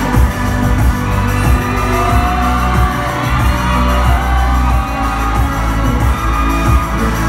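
Live pop music played loud through a PA system, with a heavy, pulsing bass and a woman singing into a microphone.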